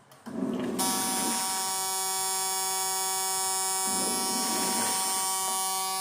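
Sansui semi-automatic washing machine's timer buzzer sounding a steady electric buzz, signalling that the wash timer has run out and the wash cycle is finished. It comes in under a second in and holds unchanged.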